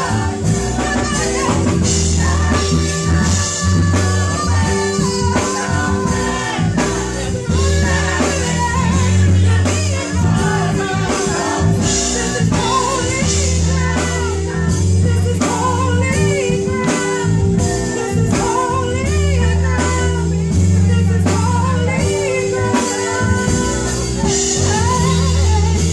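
Gospel song performed by a group of women singers, their voices over an accompaniment with a deep bass line and a steady beat.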